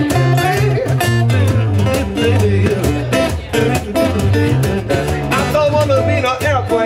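Acoustic guitar, bass and percussion playing an upbeat, bluesy instrumental break. The guitar is picked over steady bass notes and a regular percussive beat.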